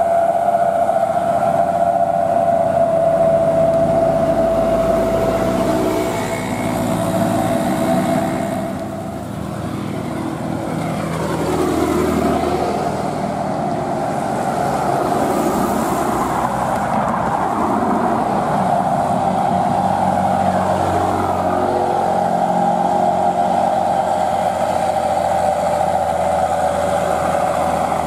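Loaded diesel trucks labouring uphill with a steady whining note. One truck pulls away at the start, other vehicles pass in the middle, and a Mitsubishi Fuso Fighter 220 PS 6x4 truck comes up under load near the end.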